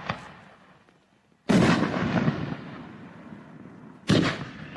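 5-inch aerial firework shells being fired from a mortar tube. The tail of a launch thump fades at the start, a loud boom about a second and a half in is followed by a long fading tail, and another sharp launch thump comes about four seconds in.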